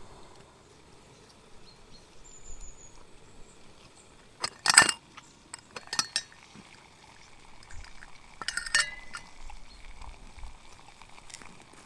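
A few sharp clinks of hard objects knocking together, the loudest a little under five seconds in, with smaller ones about six and nine seconds in.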